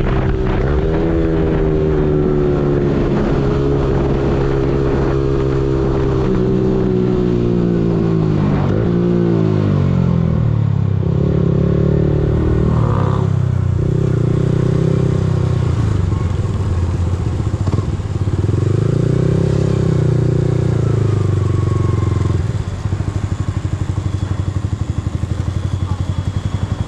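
Yamaha R15M's single-cylinder engine, revs falling as the bike slows, then a few rises and falls of throttle at low speed, and from about three-quarters of the way in it settles to a steady pulsing idle as the bike stops.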